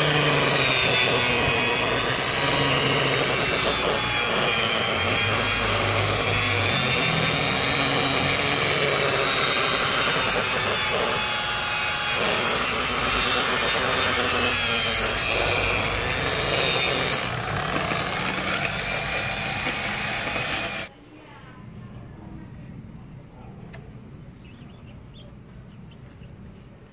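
Electric rotary polisher with a foam buffing pad running against a freshly painted 2K urethane scooter body panel, its motor whine wavering as the pad is pressed and moved. It shuts off about three quarters of the way through, leaving only faint low noise.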